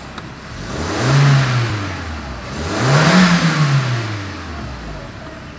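VW Golf 4's 1.6-litre AVU four-cylinder petrol engine, freshly started and still cold, revved twice from idle. The first rev is short and comes about a second in; the second goes higher, to about 4000 rpm, around three seconds in, and each drops back to idle. Heard from inside the car's cabin.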